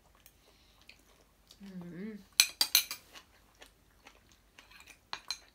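Metal spoon and fork clinking against a ceramic plate: a cluster of sharp clinks about two and a half seconds in, and a couple more near the end.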